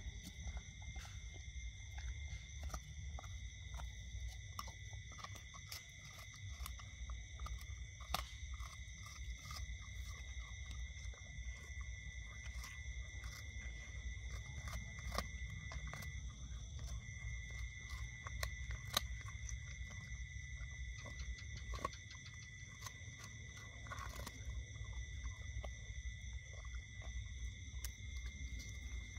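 A dog gnawing on a meaty bone: scattered cracks and crunches of teeth on bone, over a steady high-pitched background tone and low rumble.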